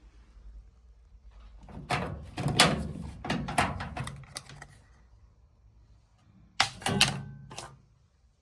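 Clattering clicks and knocks of a screwdriver and parts being worked on a washing machine's inlet valves, in two bursts: a longer one about two seconds in and a shorter one near the end.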